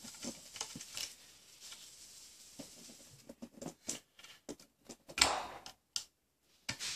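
Plastic Lego pieces clicking and tapping as a Lego City jail truck is handled, with scattered light ticks and a louder clatter about five seconds in.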